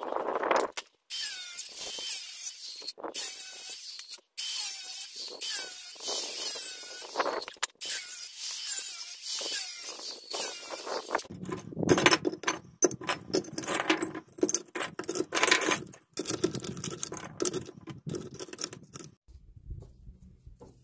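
Hollow aluminum crutch tubing clinking and jangling with a ringing metallic sound as pieces are handled, followed by a run of louder, denser rattling knocks. The sound stops suddenly near the end.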